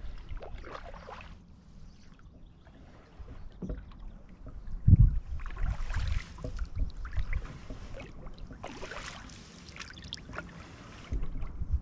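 Canoe paddle strokes: a wooden paddle dipping and pulling through calm water, with a splash and swish every few seconds. A low thump about five seconds in is the loudest sound.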